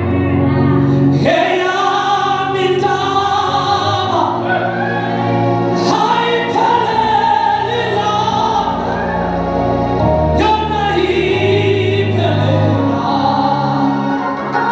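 A church congregation and worship team singing a gospel song together in chorus, with instrumental accompaniment.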